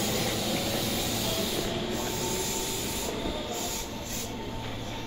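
Interior running noise of a Meitetsu 9500 series electric train: a steady rumble of wheels on rail with faint steady hums.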